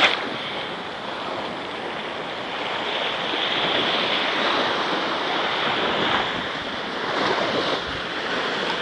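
Small waves breaking and washing up a sandy beach: a steady rushing surf that swells and eases, with wind buffeting the microphone. A brief sharp sound comes right at the start.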